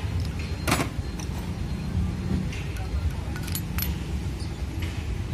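Metal clicks and clinks from a starter motor's bendix drive and small tools being handled. The loudest is a sharp click a little under a second in, with a few lighter ones later, over a steady low rumble.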